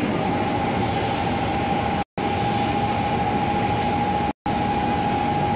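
Electric commuter train running at the station: dense rumbling rail noise with a steady high hum held throughout. The sound cuts out completely for an instant twice.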